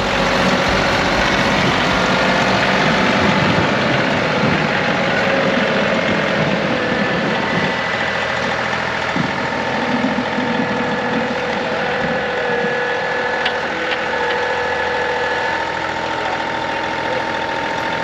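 John Deere 2038R compact tractor's diesel engine running steadily while the tractor clears snow.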